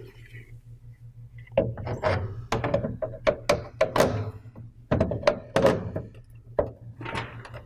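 Hard knocks and clunks of a humidifier's water distribution tray and fittings being handled and seated onto the unit. They come as a rapid, irregular run starting about a second and a half in.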